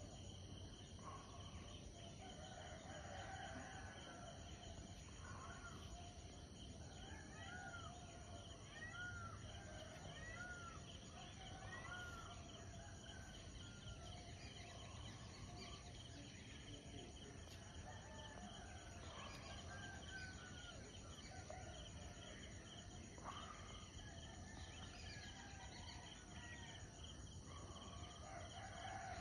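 Faint distant birds calling across the countryside, with a rooster crowing and a run of about five arched, whistled notes about a second apart a third of the way in. Behind them is a steady high insect hum.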